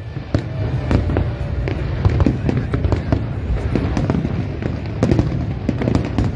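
Fireworks display: aerial shells going off as many sharp bangs in quick, irregular succession over a continuous low rumble.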